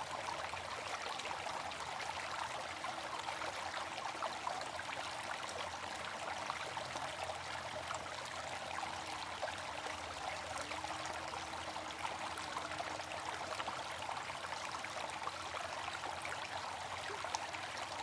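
Running water flowing and trickling steadily.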